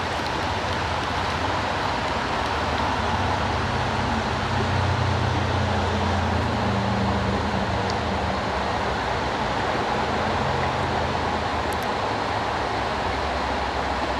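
Steady rush of water through a creek tailwater below a dam, with a low engine hum that swells and fades in the middle, as from a passing vehicle.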